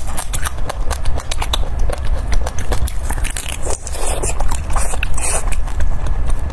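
Close-miked biting and chewing of bone-in meat, with many rapid sharp mouth clicks, over a steady low hum.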